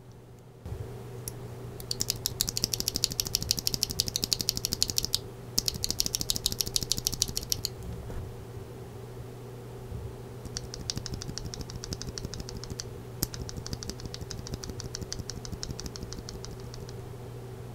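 Loose Gateron Yellow Pro linear keyboard switch pressed rapidly between the fingers: fast runs of small plastic clicks as the stem bottoms out and springs back. There are four runs, the first two louder than the last two, over a steady low hum.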